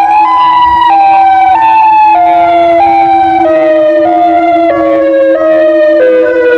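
Modulator electronic warning siren sounding: a steady low tone under a second tone that drops in short sliding steps about every two thirds of a second, so the whole wail sinks slowly in pitch.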